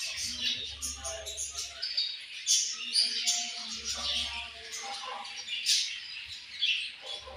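Several budgerigars chirping and chattering, with many quick high chirps overlapping without a break.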